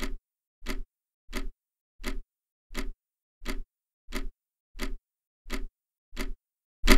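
Clock-like ticking sound effect: eleven short, evenly spaced ticks, about three every two seconds. Each tick steps an on-screen year counter back by one, and the last tick is louder.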